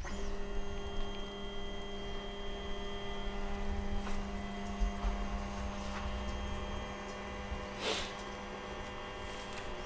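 MakerBot Replicator+ 3D printer humming steadily with a few fixed tones while it warms up before printing, with a brief scrape about eight seconds in.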